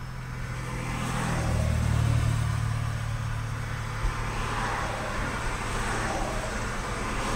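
Vehicles driving past close by: a low engine hum and tyre noise swelling and fading, with a second pass a few seconds later. A faint thump about four seconds in.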